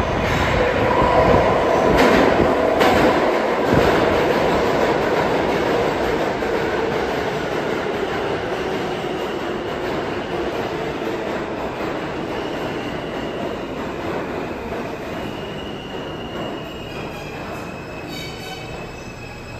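R160 subway train entering the station and slowing. Its motors give a whine that falls in pitch, its wheels clack over rail joints in the first few seconds, and high wheel squeal comes in near the end.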